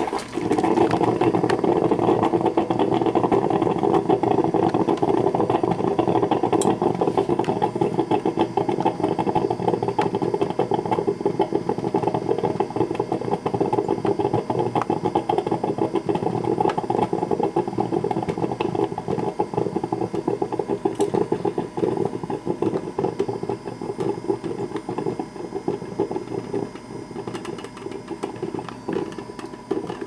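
Black & Decker TCM 411 thermal carafe drip coffee maker brewing: water sputtering and gurgling through its heating tube in a dense, steady rapid crackle, which gets weaker and more uneven in the last several seconds.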